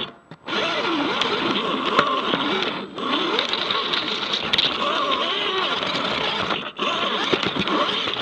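A 3D-printed AWD RC rock crawler's electric motor and gear train whining. The pitch rises and falls as the throttle changes, and it cuts out briefly three times: near the start, about three seconds in and near the end.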